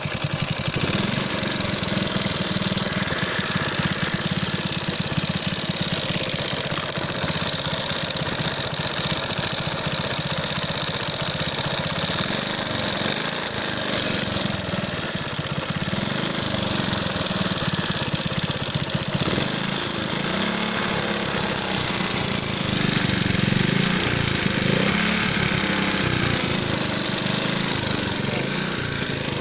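Alpha moped's single-cylinder four-stroke engine running with a harsh, rapid metallic knocking. The owner takes it most likely for the piston striking a valve after the engine was run low on oil; others suggest a valve out of adjustment or burnt.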